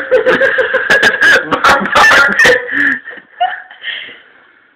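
Hearty laughter in quick rapid bursts, dying away after about three seconds.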